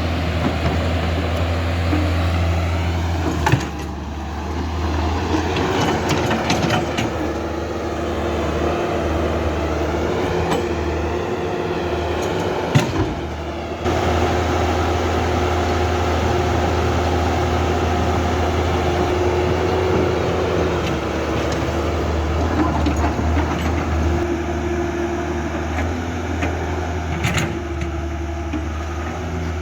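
Electric motors and plastic gearboxes of a Huina RC excavator running with a steady whine and hum, the pitch shifting as different functions are worked, with a few sharp clicks and knocks.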